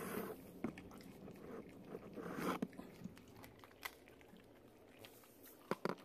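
A husky chewing and crunching raw chicken with bone in it: irregular crunches and a few sharp cracks, two of them close together near the end.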